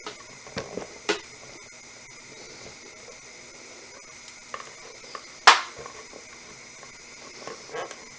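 Pet water fountain parts being handled and fitted together: scattered light clicks and knocks, with one sharp click about five and a half seconds in.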